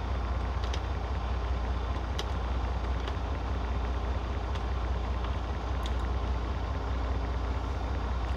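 Truck engine idling with a steady low rumble, heard from inside the cab, with a few faint clicks over it.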